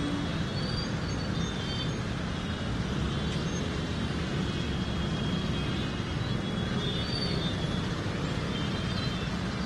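Steady outdoor street ambience: a low, even rumble of traffic with a hiss over it, and faint short high chirps now and then.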